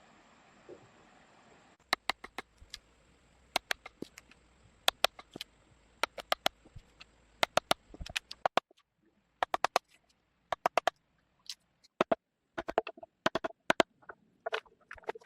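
Hand tool striking wood, most likely an axe or chisel hollowing out a log: a long series of sharp knocks, often in quick clusters of two to four.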